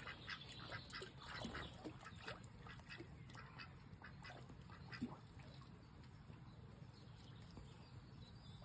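Domestic ducks quacking softly and dabbling in muddy water. The short quiet calls come mostly in the first few seconds, with one brief clearer call about five seconds in.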